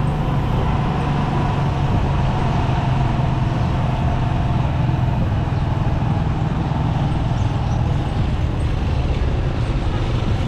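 Motorcycle engine of a tricycle running steadily while riding, with road and traffic noise around it.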